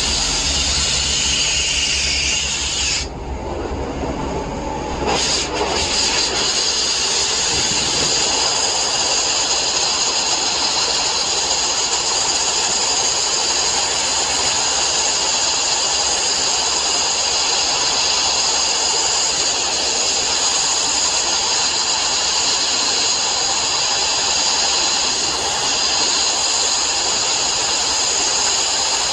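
Abrasive sandblasting: a loud, steady hiss of compressed air and grit from the blast nozzle. It stops briefly about three seconds in and starts again about two seconds later.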